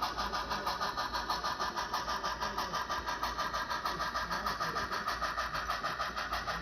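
Model railway layout running: a steady, even, rapid clatter of about five beats a second as a model steam train passes the level crossing.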